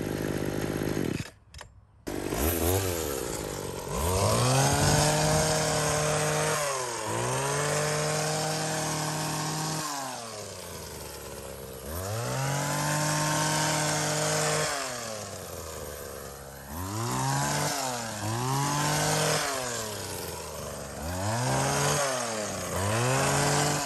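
Two-stroke engine of a 1990s USA-made hedge cutter, revved up and dropped back to idle over and over while its blades trim a bush, the pitch rising and falling with each burst. The sound breaks off briefly about a second in.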